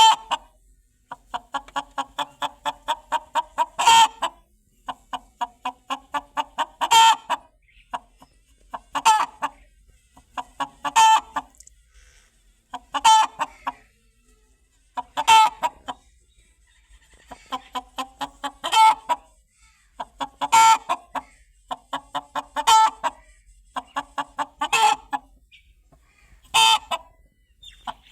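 A chicken cackling: runs of quick short clucks, each rising into a louder, drawn-out squawk, repeated about every two seconds.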